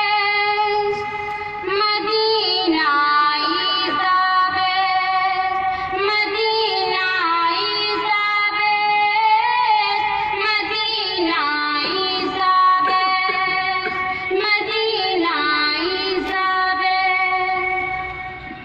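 A young female voice singing a naat, an Islamic devotional poem, solo and unaccompanied. She sings in long held, ornamented phrases with short breaks between them, and the singing stops near the end.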